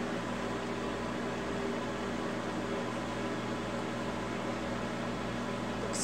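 Microwave oven running with a steady hum while heating a bar of soap.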